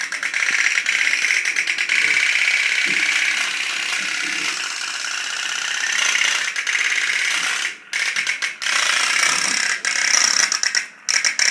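Tin 'Robin' pop-pop steam boat running, its candle-heated boiler putting out a fast, steady rattling putt-putt, with brief breaks near 8 seconds and 11 seconds.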